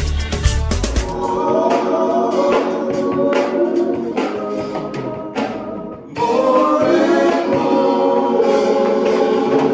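Gospel choir singing with instrumental backing. The deep bass drops out about a second in, and the music dips briefly a little past the middle before the voices come back in full.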